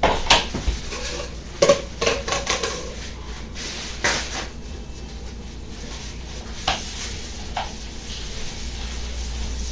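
Dishes and cutlery clinking and clattering, with a run of sharp knocks in the first few seconds and a couple of fainter ones later.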